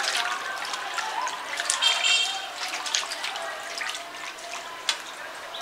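Water splashing and sloshing in a steel bowl as a hand washes cut hilsa fish pieces, with small drips and splashes, and one sharp knock near the end.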